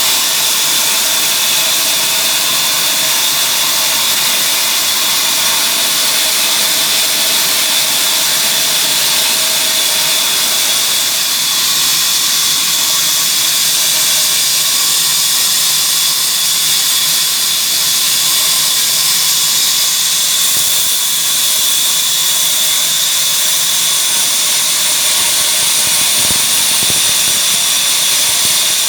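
Engine-driven wood-sawing machine running steadily, a loud continuous mechanical noise with a strong high hiss.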